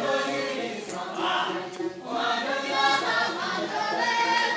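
Group of voices singing a Tibetan song together on stage, with a brief break a little under two seconds in.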